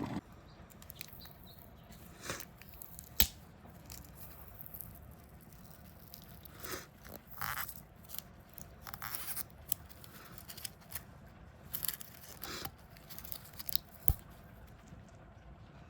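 A vinyl wheel sticker being peeled off after steaming: scattered short tearing, rasping sounds, with a sharp click about three seconds in and another near the end.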